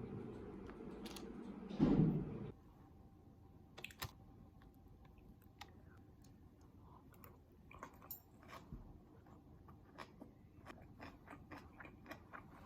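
A low rumbling noise with a louder burst about two seconds in, which stops abruptly. Scattered small clicks and taps follow, coming faster toward the end.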